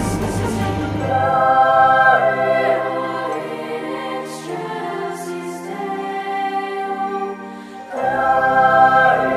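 Background Christmas music: choir voices holding long chords. The deep bass drops out about a second in and comes back near the end.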